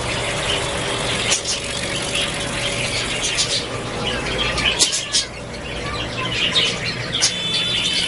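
Budgerigars chattering: a busy run of short, high chirps and squeaks, with a brief flutter of wings at the start.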